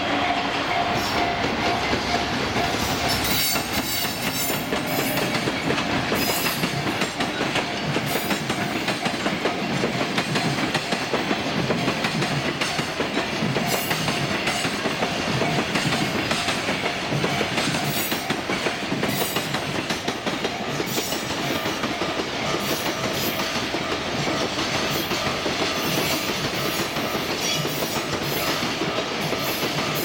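Trains running over a level crossing: a JR commuter electric train and then a long container freight train, wheels clattering steadily over the rail joints, with the crossing's warning bell ringing over them.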